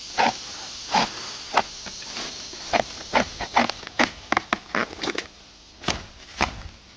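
An irregular run of sharp cracks, snaps and rustles from bamboo stalks and dry sheaths being cut and pulled while harvesting ma bamboo shoots.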